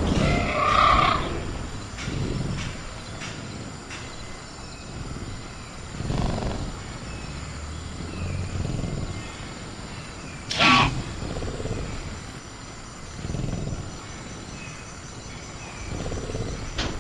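Velociraptor creature sound effects: growls and calls every few seconds, a pitched call at the start and a sharp screech about ten and a half seconds in, over a faint steady insect chirr.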